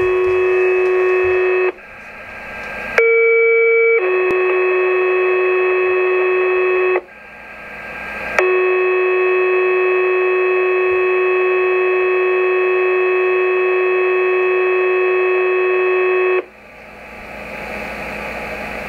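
Radio scanner's speaker playing county pager test tones. A steady tone cuts off into static hiss, then a slightly higher one-second tone runs straight into a three-second tone. After more hiss comes a long steady tone of about eight seconds, and the open channel hisses again near the end.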